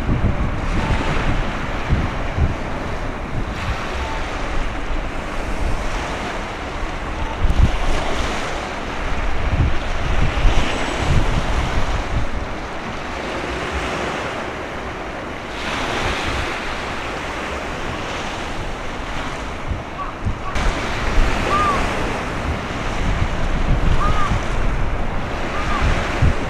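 Strong wind buffeting the microphone in gusts over the wash of choppy waves. A few faint, short whistling calls come near the end.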